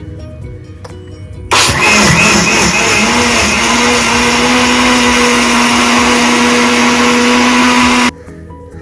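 Electric mixie (countertop blender) switched on about a second and a half in. Its motor spins up and then runs at a steady whir while grinding leaves, soaked rice and water into a paste, then cuts off suddenly near the end. Soft background music is heard before it starts and after it stops.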